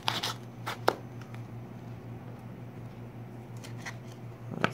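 A paper screen-protector sleeve being slit with a knife and pulled open: a few sharp crackles and scrapes in the first second and another near the end, over a steady low hum.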